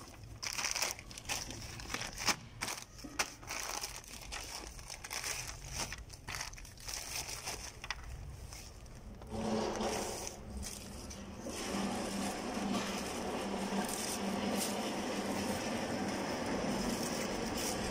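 Plastic courier packaging crinkling and rustling in short crackles as it is handled and torn open by hand. About nine seconds in, a steady mechanical hum comes up and carries on underneath.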